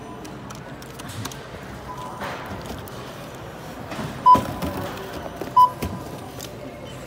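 Short electronic beeps of a store checkout: a faint one about two seconds in, then two loud ones about a second and a half apart, over background store noise and light knocks.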